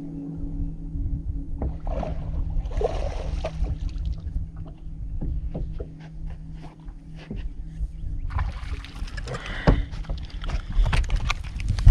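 A hooked bass splashing and thrashing at the surface as it is reeled to the boat and swung aboard, with a longer burst of splashing in the last few seconds. Short knocks from rod and boat handling sound throughout, over a steady low hum.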